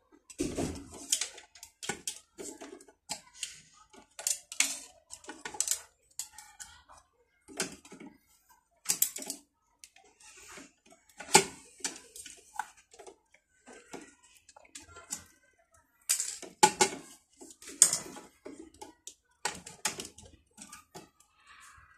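Irregular clicks, taps and knocks of plastic and metal parts inside a DNP DS-RX1 dye-sublimation photo printer as the rubber roller, its bearing removed, is worked back into its slot by hand and with a knife. The loudest knocks come a little past halfway and again about three-quarters through.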